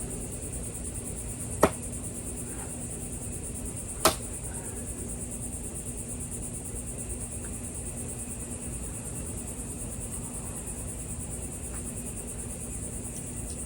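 Two sharp thunks about two and a half seconds apart: thrown knives striking a wooden target board. Behind them, a steady high chorus of crickets.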